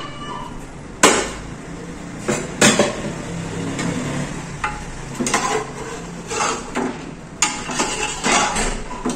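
A metal spoon stirring inside a pressure cooker pot, knocking and scraping against its sides, with several sharp clanks.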